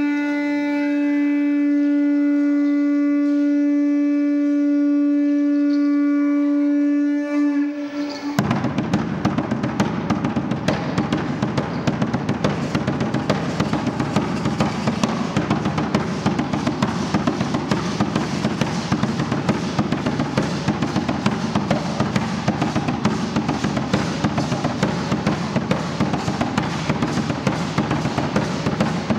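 A conch shell trumpet blown in one long steady note for about eight seconds, then cut off as drumming with rattles starts in a fast, steady beat to open the Aztec dance.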